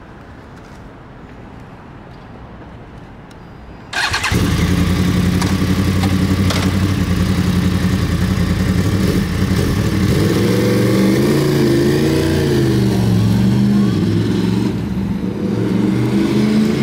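Yamaha R1 sportbike's inline-four engine, with an aftermarket slip-on exhaust, starting suddenly about four seconds in and then idling loudly, its revs rising and falling slightly a few times.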